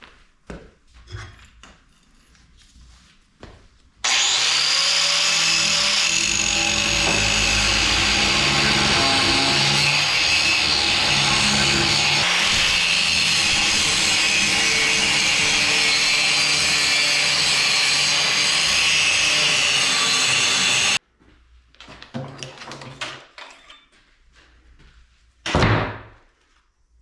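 A power grinder runs steadily on steel for about seventeen seconds, starting abruptly about four seconds in and cutting off suddenly. Before and after it come quieter scattered knocks, with one louder knock near the end.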